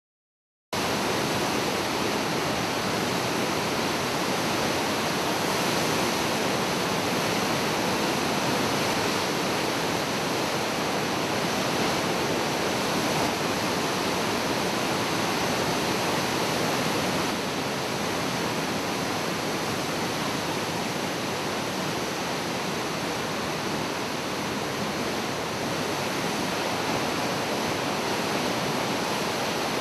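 Floodwater rushing through a river dam's open gates and churning in the tailwater below: a loud, steady roar that starts abruptly under a second in and drops slightly in level about halfway through. The river is in flood, so the dam is passing a very high flow.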